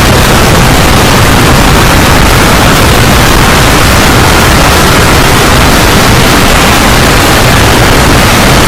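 Deafening, heavily distorted noise held at full loudness without a break: an over-amplified explosion-and-fire sound effect.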